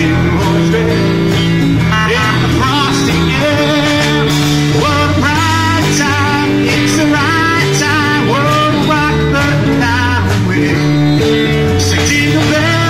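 Live band playing an upbeat rock-and-roll style song with guitar, a wavering melody line over a steady bass.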